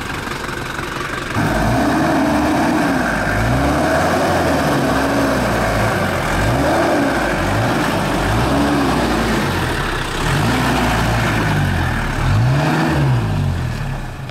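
Toyota LandCruiser 70-series 4WD engine revving up and easing off over and over, roughly every one and a half to two seconds, as it drives slowly over a rutted muddy track. It gets louder about a second and a half in.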